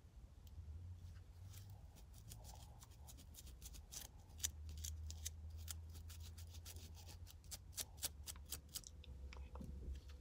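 A plastic edge brush's bristles and fine-tooth comb scratching over a scalp in quick repeated strokes to lift dandruff flakes, stopping about nine seconds in. A low steady hum runs underneath.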